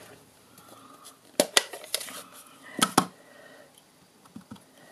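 Clear acrylic stamp blocks and a plastic ink pad case handled on a craft table: several sharp plastic clacks between about one and three seconds in, then a couple of soft taps as a stamp is pressed onto the ink pad.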